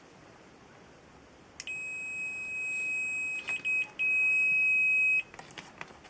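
Fluke digital multimeter's continuity beeper sounding a steady high-pitched beep for about three and a half seconds, cutting out briefly a few times around the middle: the reed switch contacts are closed across the test leads. A few light clicks near the end.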